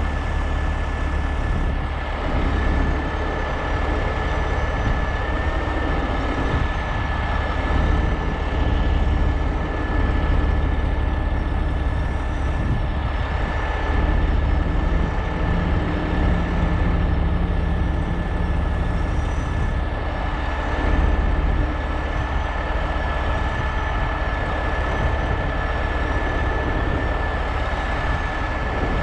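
Heavy rotator tow truck's diesel engine running steadily, with a thin steady high whine over the low rumble.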